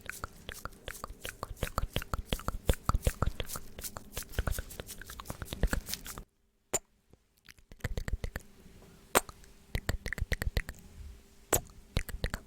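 ASMR mouth sounds: rapid wet clicks and smacks of tongue and lips, dense at first, breaking off for about a second and a half a little past halfway, then resuming more sparsely.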